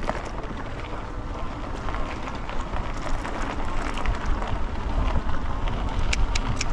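Wind buffeting the microphone of a moving e-bike: a steady low rumble and rush that grows a little louder toward the end, with a few sharp clicks near the end.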